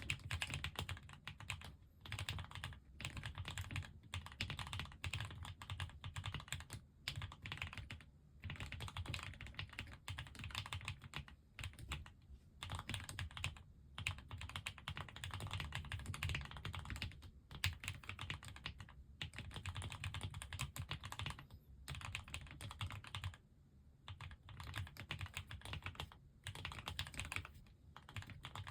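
Fast typing on a KBDfans Agar mechanical keyboard with Gateron Pro Ultra Glory Yellow switches: keystrokes in quick runs, broken by short pauses every second or two.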